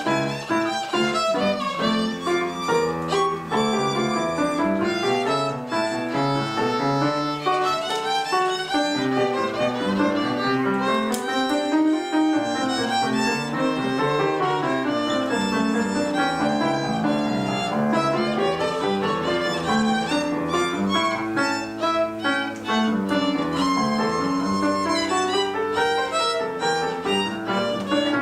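Violin music: the first movement of a concerto for two violins, played continuously with quick running notes, with a softer piano accompaniment underneath.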